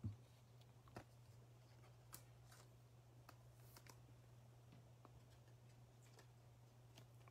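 Near silence: a steady low hum with a few faint, short clicks of trading cards being handled and set down on a playmat, the sharpest just at the start and another about a second in.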